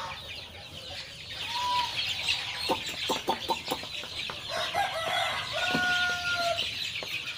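Many chicks peeping in a brooder with adult chickens clucking, and one drawn-out chicken call about six seconds in. A quick run of knocks about three seconds in from the wooden board on the cage being handled.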